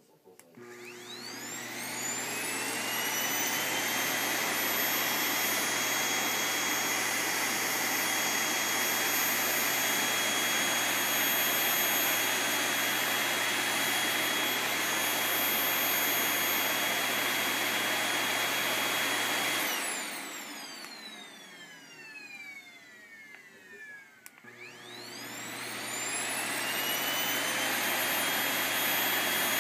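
Vacuum cleaner motor switched on, its whine rising to full speed and then running steadily. About two-thirds of the way through it is switched off and winds down with a falling whine, then it is switched on again and spins back up near the end.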